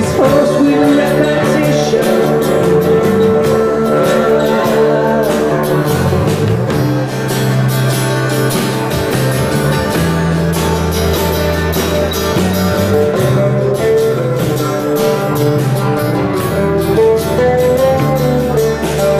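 Live band playing on stage: guitar, bass and drums with a steady beat.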